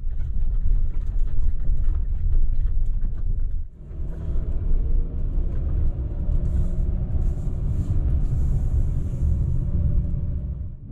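Road and engine noise inside a moving van's cab: a steady low rumble that dips briefly about four seconds in, then carries on with a faint steady drone over it.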